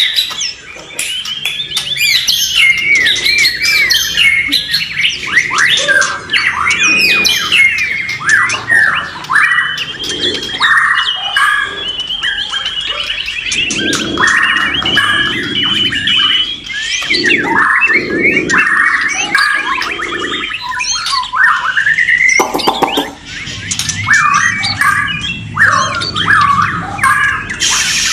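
Several white-rumped shamas (murai batu) singing at once: dense, overlapping whistled phrases with rapid trills and sliding notes, broken by harsh, rasping calls.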